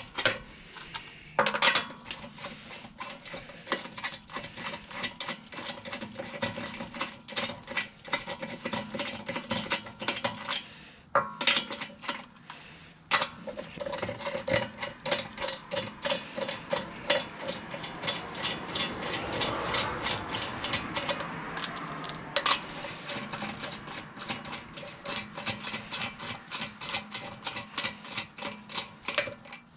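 Hand ratchet with a 21 mm socket clicking in rapid runs as loosened lug nuts are spun off a car wheel, with short pauses between runs.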